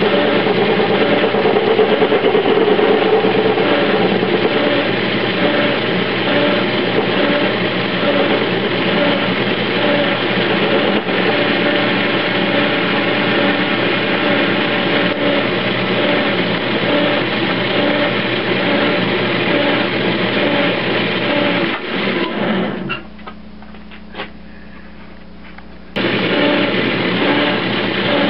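Metal lathe running under power while turning a replacement bearing: a steady motor and gear-train whine with cutting noise from the tool. Near the end the noise drops away for about three seconds, then comes back abruptly.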